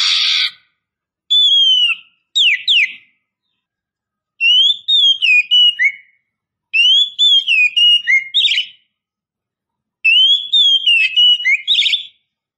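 Female oriental magpie-robin (kacer) calling: a short harsh note, then five phrases of clear whistled notes that slide up and down, each a second or two long with short pauses between. It is the call of a female in breeding condition calling to males.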